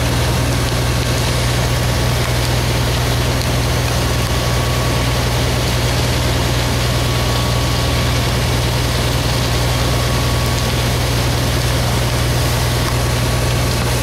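Fire engine's motor running steadily with a low, even drone while it drives its pump to feed the hose lines, under a steady hiss.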